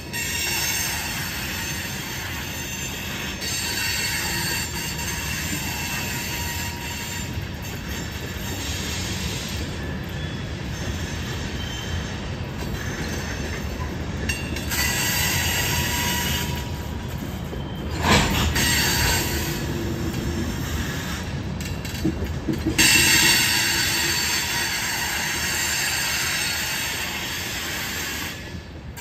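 Covered hopper cars of a freight train rolling past, wheels squealing in high-pitched tones that swell and fade in stretches over a steady rumble. A single sharp knock about 18 seconds in.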